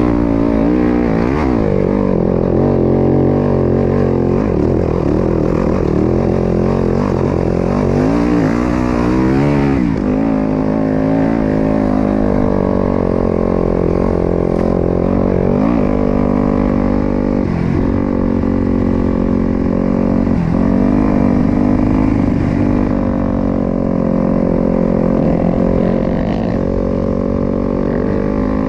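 Dirt bike engine under load on a hill-climb trail. It revs up and eases off with the throttle, and its pitch drops and climbs again several times through the ride.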